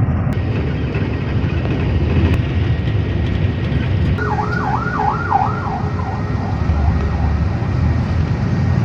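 Steady low rumble of a bus on the road. About four seconds in, a fast warbling siren rises and falls several times, then fades away over about two seconds.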